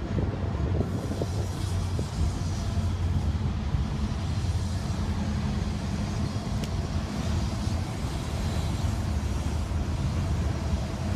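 Two freight trains moving over elevated bridges: a steady rumble of rolling autorack cars over the low, even drone of diesel locomotives.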